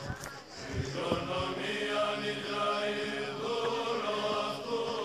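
Choral chant music with sustained singing voices, playing as a background track.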